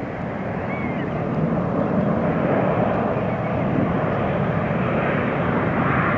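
Jet airliner's engines, a steady noisy rumble that grows louder over the first two seconds and then holds.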